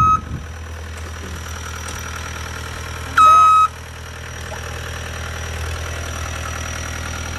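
Engine of the vehicle towing the shed idling steadily. It is cut by one loud, high electronic warning beep about three seconds in, like a reversing alarm.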